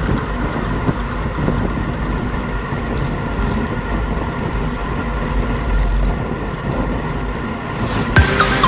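Steady rumbling noise, with electronic music cutting in loudly about eight seconds in.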